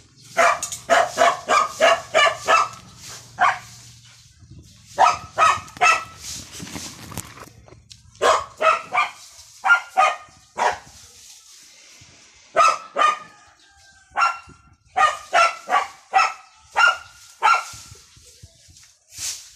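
A dog barking repeatedly in runs of quick, sharp barks, about four a second, with short pauses between the runs.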